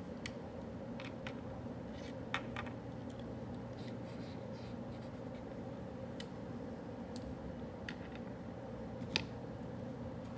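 Pen writing on paper, with scattered light ticks and taps and two sharper taps, about two seconds in and near the end, over a steady low room hum.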